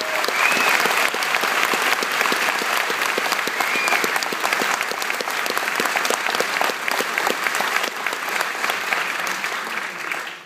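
Audience applauding steadily in an auditorium, with a couple of short high-pitched calls from the crowd.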